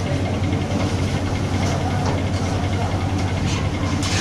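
Steady low machine hum, like an engine running at a constant idle, unchanging throughout.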